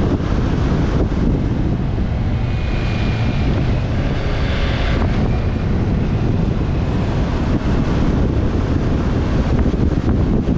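Wind blasting across the microphone of a camera riding on a moving motorcycle: a loud, steady low rumble of buffeting that drowns out the bike itself.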